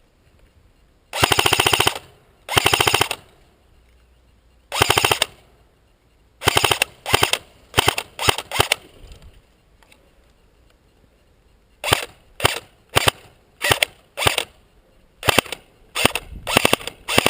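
Airsoft gun firing in rapid full-auto bursts. Three longer bursts come in the first five seconds, then strings of short bursts, with a pause of a few seconds in the middle.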